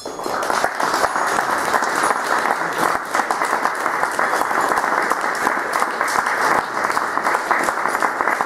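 Audience applauding: the clapping breaks out suddenly as the play ends and keeps up at a steady level.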